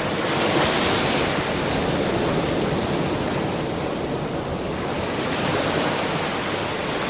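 Ocean surf: waves breaking and washing up a shore, swelling about a second in and ebbing away around the middle.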